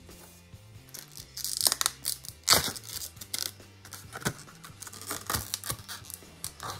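Packaging being handled: a stiff clear plastic clamshell pack crinkling and crackling in irregular bursts, loudest about two seconds in. Quiet background music plays underneath.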